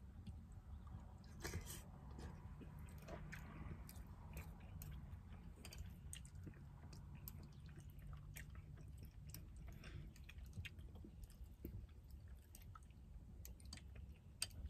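A person chewing mouthfuls of pasta with ground beef, faint, with many small clicks throughout and a low steady hum underneath.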